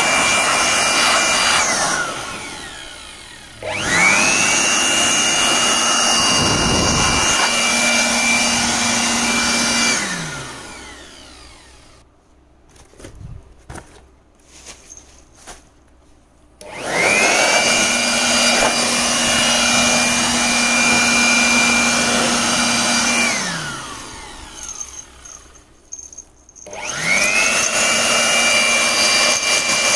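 Cheap handheld electric blower switched on and off four times: each time the motor spins up quickly to a steady high whine over a rush of air, runs for several seconds, then winds down. In the longer pause in the middle there are only a few light clicks and knocks.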